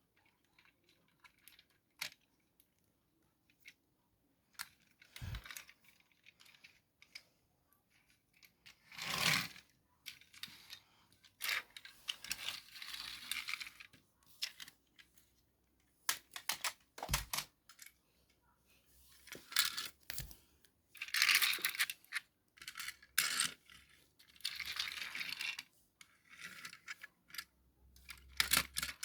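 Irregular clicks, taps and rustling as a toy tram model and its packaging are handled, with several longer scraping or rustling passages.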